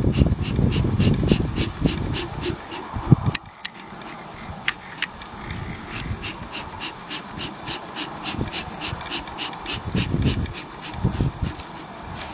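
Bee smoker's bellows being pumped to get the fuel burning, puffing air through the smoking canister in quick, even puffs, about four a second. A low rumble runs under the first three seconds and returns near the end, with a sharp click about three seconds in.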